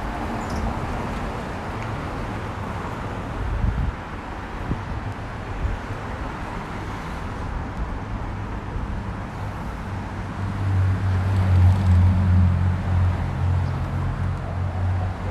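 Road traffic passing along a city street, with a louder vehicle going by about ten seconds in, its low engine drone lasting a few seconds.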